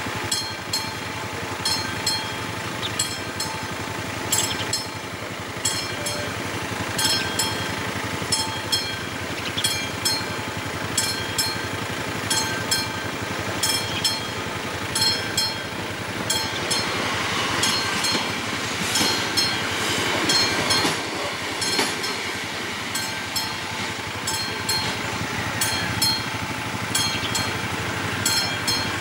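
Railway level-crossing warning bell ringing steadily, a repeated electronic ding a little more than once a second, which signals that the crossing is closed for a train. Under it is a steady mechanical rumble, and a broader rushing noise swells for a few seconds after the middle.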